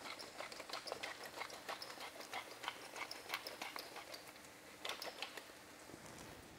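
Pepper mill twisted over a pan of frying onions: a run of quick, irregular crunching clicks that stops about five seconds in. The onions sizzle faintly underneath.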